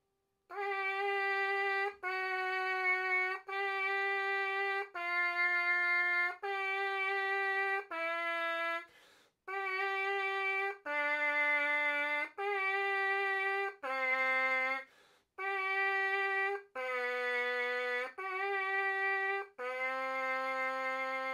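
Trumpet mouthpiece buzzed on its own, playing slow sustained notes of about a second and a half each with short breaks between them: an interval exercise in which a repeated upper note alternates with lower notes that step further down.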